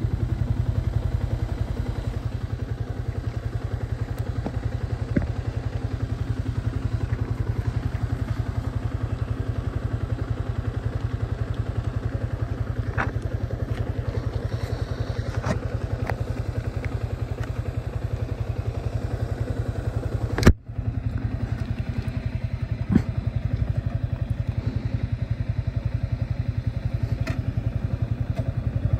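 Motorcycle engine running steadily on the move, a low, fast-pulsing hum. A few sharp clicks and knocks sound over it, the loudest about twenty seconds in.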